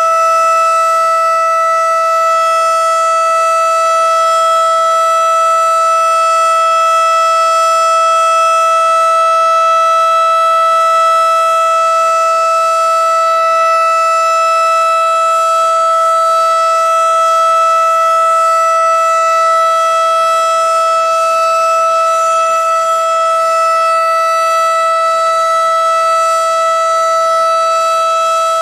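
Federal Signal STH-10 single-tone outdoor warning siren sounding a steady tone at full speed during a siren test. It holds one pitch, loud and unchanging, with strong overtones.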